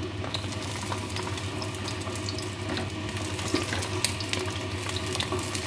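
Raw sausages frying in hot oil in a non-stick pan: a steady sizzle with frequent small crackles and pops.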